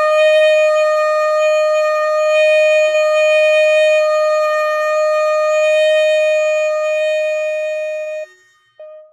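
Saxophone holding one long, steady C as a long-tone exercise, played with the jaw dropped halfway to open up a bigger sound while keeping the note in tune. It stops about eight seconds in, and a short blip of the same note follows near the end.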